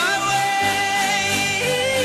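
Background pop music: a singer holds one long note, then drops to a lower held note near the end, over a bass line.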